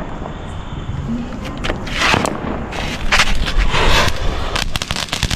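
Chatpat 'popcorn' crackling firework spraying sparks: a rapid string of sharp pops and crackles over hissing surges of burning, getting louder about halfway through.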